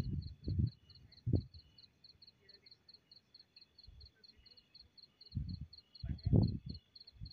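A cricket chirping steadily in a high, even pulse, about five chirps a second. Low muffled bumps and rumbles come near the start and again from about five and a half seconds in, loudest a little after six seconds.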